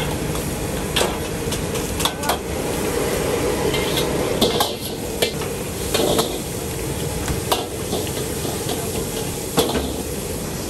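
Steel wok cooking: food sizzling in hot oil with a steady hiss, while a metal ladle and a perforated strainer clank and scrape against the steel woks about nine times.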